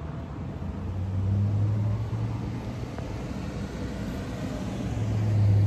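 Street traffic noise, with a low engine hum that swells twice as vehicles pass, about a second in and again near the end.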